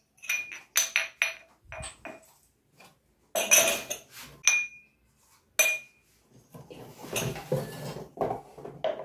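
Glassware being handled and set down: a string of sharp clinks, each with a brief glassy ring, then a stretch of softer handling noise near the end.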